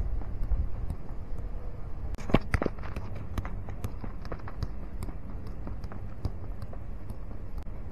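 Soccer ball dribbled on packed dirt: a run of quick light taps and scuffs from boot touches and footsteps, with two louder knocks about two and a half seconds in. A low rumble, like wind on the microphone, runs underneath.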